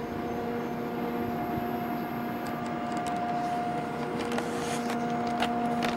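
A steady mechanical hum holding one pitch with its overtones, over a soft background hiss, with a few faint clicks near the end.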